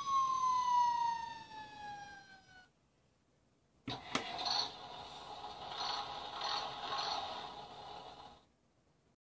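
Electronic toy fire engine sounds from a small speaker: a siren wail sliding down in pitch, which stops after about two and a half seconds. After a short pause, a button clicks and a hissing sound effect with a few pulses plays for about four seconds.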